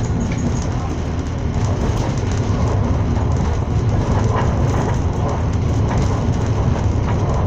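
Passenger train running at speed, heard from inside a carriage: a steady low rumble of wheels on the rails with faint clicks over it.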